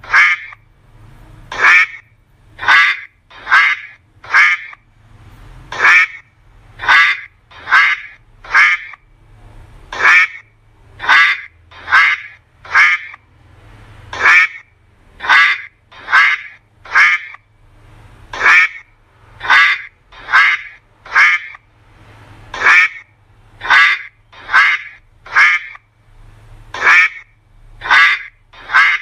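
Duck quacking over and over, the quacks coming in quick runs of two to four with short pauses between runs.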